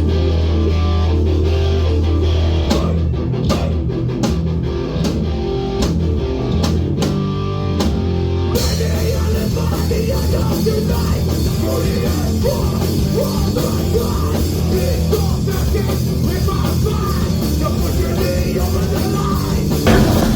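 Hardcore band playing loud rock music with distorted guitars, bass and drums. The first part is sparser, with a sustained low end and separate drum hits; about eight seconds in, the full band comes in with crashing cymbals.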